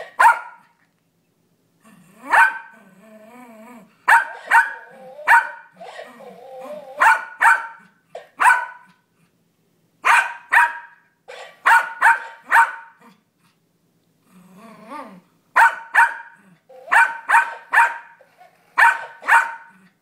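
Yorkshire terrier barking in quick bursts of three or four sharp barks, with low growls between some bursts. A toy parrot that records sounds plays the barks back in turn.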